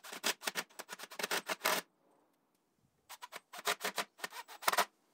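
A cordless drill/driver driving screws into wooden corner brace pieces: two runs of under two seconds each, made of quick, sharp pulses, with a short pause between them.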